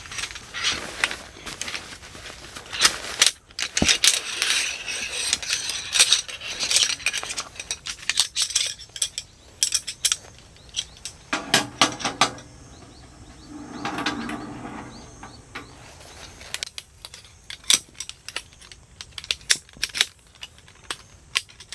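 Shock-corded metal pole sections clinking and clicking as they are unfolded and snapped together, with a fabric carry bag rustling in the first few seconds. The clicks come quickly and unevenly, thickest near the end.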